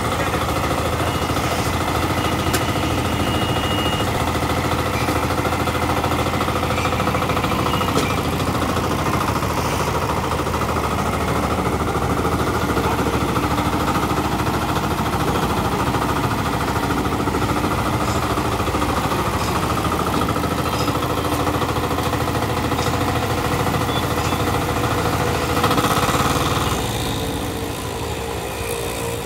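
Small engine of a VST walk-behind power weeder running steadily; near the end it briefly gets louder, then drops back to a quieter idle.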